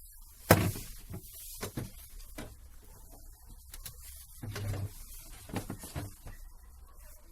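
Irregular hard clunks and knocks, the loudest about half a second in and a cluster a little before the five-second mark, from a Lada Vesta front anti-roll bar link being moved by hand at its ball joint. The joint is worn loose, and its play is what knocks.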